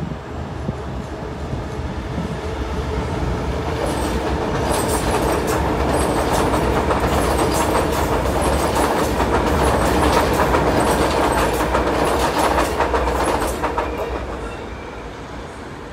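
Sydney Trains Tangara double-deck electric train passing, growing louder to a peak about ten seconds in, with rapid clicks of wheels over the rail joints. It fades over the last couple of seconds.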